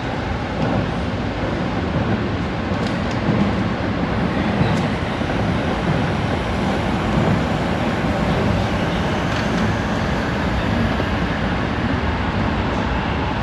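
Tsukuba Express electric train running through a tunnel, heard from inside the leading car: a steady rumble of the train at speed.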